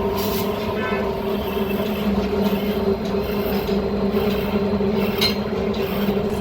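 Metal lathe running steadily with an even machine hum, with a couple of brief higher scraping touches near the start and about five seconds in.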